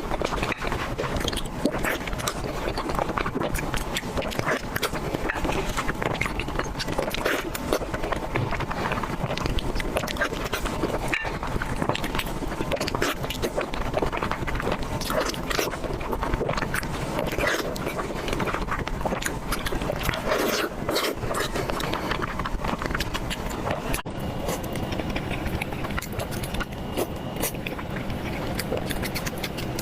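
Chewing and biting into food, many small wet clicks, over a steady background noise.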